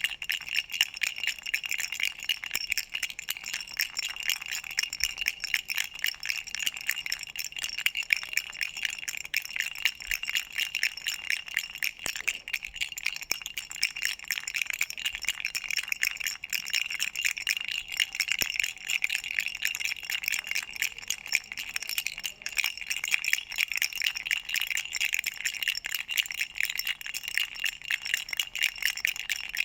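A children's duck toy rattle shaken quickly and without pause: a dense, even jingling with a steady bell-like ring over the rapid clicks.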